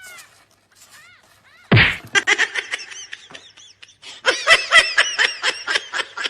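Rapid, high-pitched laughter in two runs: a short one just after a sudden thump about two seconds in, and a longer one from about four seconds.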